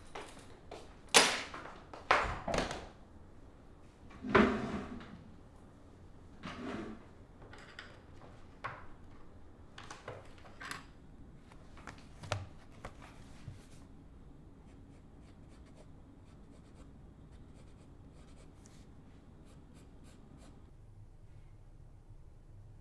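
Knocks, thumps and rustling of someone moving about and handling things at a desk, the loudest knock about four seconds in. The handling dies away after about fourteen seconds, leaving only quiet room tone.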